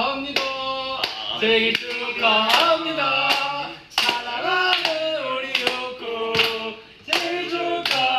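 Several young men's voices singing together, with steady hand claps keeping the beat.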